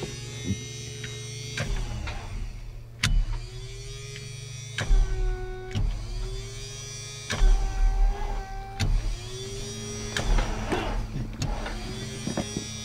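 Electric starter cranking a Piper Aztec's aircraft engine in repeated bursts, each a whine that rises and then holds, separated by sharp clicks, over a steady hum; the engine turns over but does not catch.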